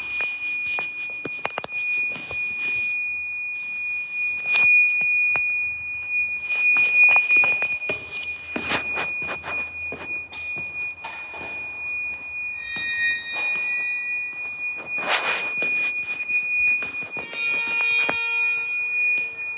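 A steady, high-pitched electronic beeping tone, like an alarm, held without a break. Scattered knocks and rustles come over it, and a short burst of other tones comes near the end.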